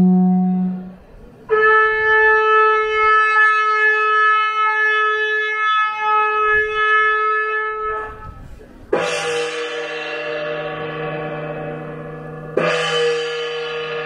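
A ceremonial horn sounds long, steady single notes: a low note that ends about a second in, then a higher note held for about seven seconds. Two sudden ringing strikes follow, about nine and twelve and a half seconds in, each dying away slowly like a gong.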